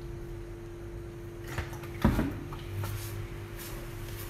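A plastic water jug is set down on a stone counter, a light knock and then a sharp one about two seconds in, followed by soft stirring of wet flour in a bowl, over a steady low hum.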